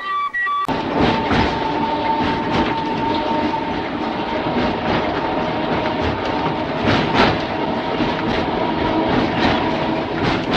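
Mumbles Railway electric tramcar running along the line: steady rumble and whine with irregular clicks of wheels over rail joints. It begins abruptly under a second in, cutting off a brief high steady tone.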